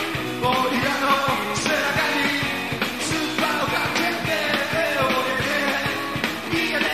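Rock and roll band playing: electric guitars over a steady drum beat, with a voice singing.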